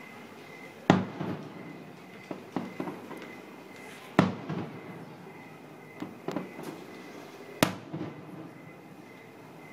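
Aerial firework shells bursting: three sharp booms about three and a half seconds apart, each followed by smaller pops and crackles that ring out afterwards.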